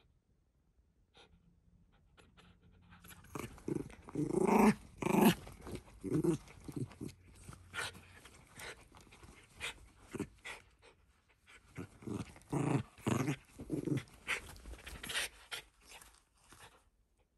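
Shiba Inu play-growling and panting while mouthing and biting at a gloved hand, in short irregular bursts with sharp clicks. It starts about three seconds in and stops shortly before the end.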